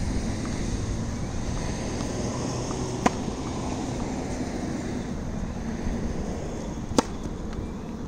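Two sharp pops of a tennis ball being struck on a hard court, about four seconds apart, over a steady low background rumble.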